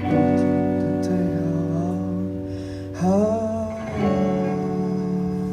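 Live band guitars ringing out slow, sustained chords, with fresh chords struck at the start and again about three and four seconds in. A short gliding melodic line rises and falls around three seconds in.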